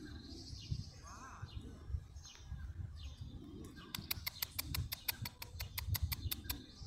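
Wild birds chirping and calling, with a quick run of sharp ticks, about six a second, lasting two to three seconds from about four seconds in. Soft low thuds sound underneath.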